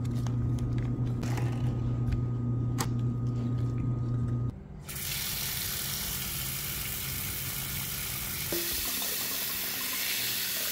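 Kitchen tap running steadily into a sink, starting a little under halfway through, as fruit is rinsed before a baking-soda soak. Before the water starts there is a steady low hum with a few light clicks and knocks.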